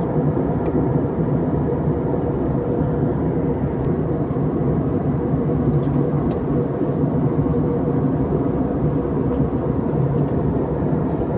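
Steady cabin noise of a jet airliner in flight, engine and airflow noise heard from inside the cabin, with a faint steady hum in it.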